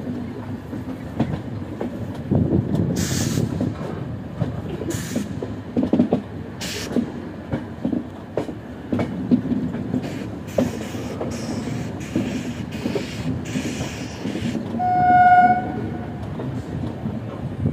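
Passenger train's coach wheels running on the rails, heard from an open coach doorway: a steady rumble with clickety-clack over the rail joints. Near the end the train's horn sounds once, for about a second.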